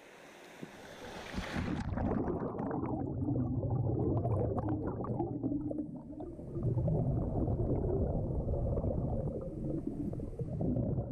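Muffled, churning water sound, low rumbling with bubbling, like being under the surface, after a hiss that cuts off about two seconds in.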